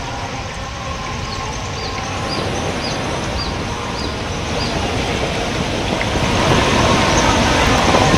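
Steady rushing of a swollen, fast-flowing river in flood, growing gradually louder.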